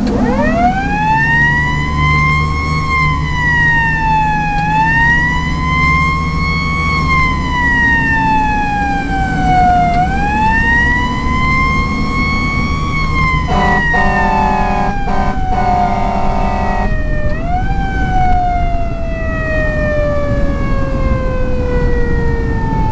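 Federal Q2B mechanical siren on a 1990 Seagrave fire engine, spun up from rest at the start, then let coast and re-spun several times, its wail rising and falling in long sweeps and ending in a long falling glide. A short run of air horn blasts sounds just past the middle, over the steady drone of the truck's Detroit Diesel 6V92 engine.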